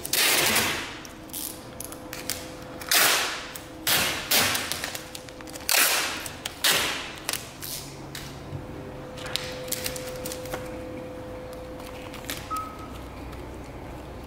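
Masking tape ripped off the roll in quick, loud rasping pulls, about half a dozen in the first seven seconds, then quieter handling as the strips are pressed down, over a faint steady hum.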